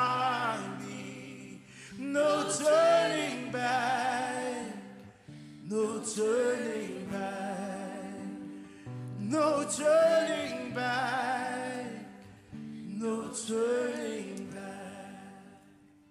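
A group of voices singing a slow worship hymn in long phrases with short breaks between them, over steady held low notes, with the last phrase fading out near the end.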